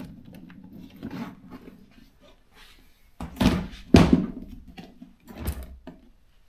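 Portable typewriters being shifted and set down on a table: a few knocks and thumps with light clicks and rattles between, the loudest about four seconds in.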